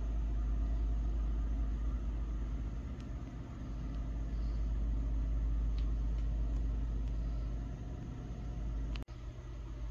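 Steady low rumble under a faint hiss, broken by a brief dropout about nine seconds in.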